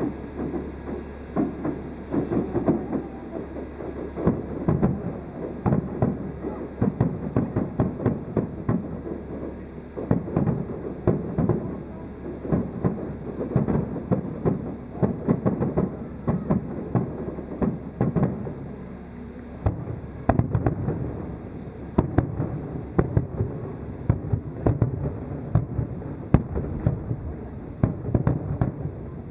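Aerial firework shells bursting in a rapid, near-continuous finale barrage: a dense run of booms and crackles, several a second, heard from far off.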